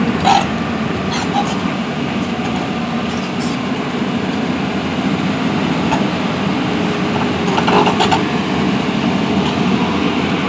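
Excavator's diesel engine running steadily, with a few short clicks or knocks.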